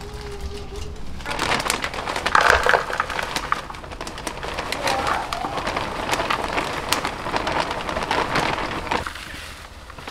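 Garden soil poured from a plastic bag into a planter: a dense rustling patter of falling soil with crinkling of the bag. It starts about a second in and stops about a second before the end.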